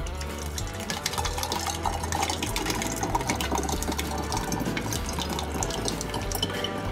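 Thick reduced barbecue sauce pouring through a plastic funnel into a glass whiskey bottle, a continuous wet pouring with fine crackles as the bottle fills.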